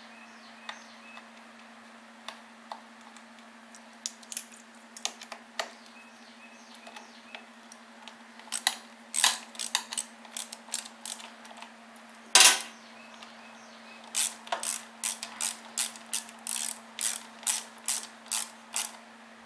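Socket ratchet wrench clicking as the nuts holding a plastic air box base are tightened down. The clicks are scattered at first, with one louder clack past the middle, then settle into a steady run of about three a second near the end.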